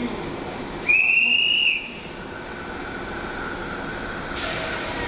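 A single loud, shrill whistle blast about a second in, lasting just under a second. Near the end a rushing hiss sets in as a train approaches the platform.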